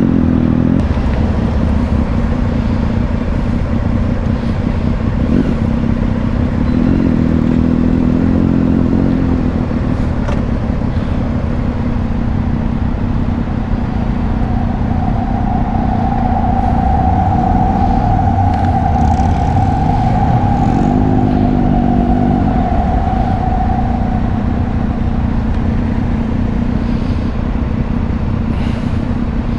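2005 Suzuki V-Strom 650's V-twin engine running under heavy wind rumble while riding, its pitch rising and falling twice as the throttle changes. A steady higher whine holds for several seconds in the middle.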